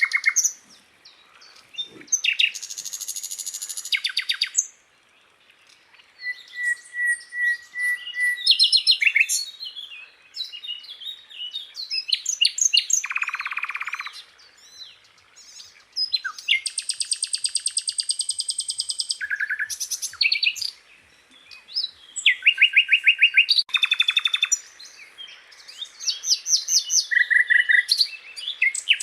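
Sikatan londo songbird singing a varied song of rapid trills, buzzy rattling phrases and short whistled notes, one phrase after another with brief pauses between them.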